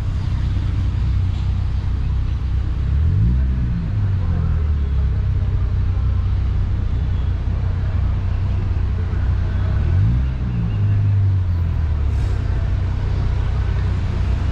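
City street traffic: cars and buses running past in a steady low rumble, with a vehicle engine rising in pitch as it accelerates twice, about three and ten seconds in.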